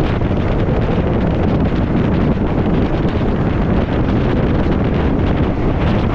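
Steady wind rushing over the microphone at a moving train's window, with the train's low running rumble underneath.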